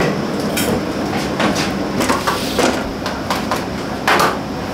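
Busy restaurant kitchen: a steady background hum with scattered clinks and knocks of ceramic bowls and utensils, the loudest about four seconds in as a ramen bowl is set down on the counter.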